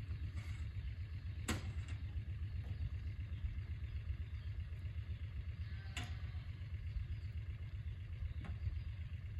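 Side-by-side utility vehicle's engine idling with a steady low rumble, with three sharp knocks over it, about four and a half seconds apart and then two and a half.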